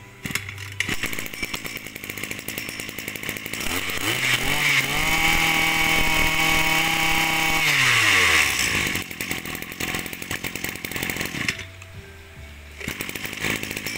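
Small two-stroke brush-cutter engine (34 mm bore, 26 cc) pull-started and catching at once, then idling. About four seconds in it is revved up, held at high revs for a few seconds and let back down to idle.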